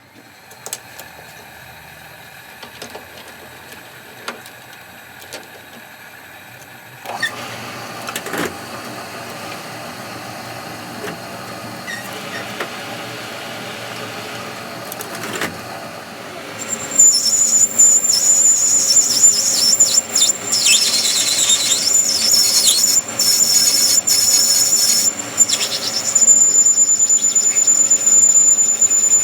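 Metal being worked on a shop machine: a steady running noise that grows louder about seven seconds in. From about seventeen seconds in a loud, steady high-pitched squeal sets in, with scraping noise around it.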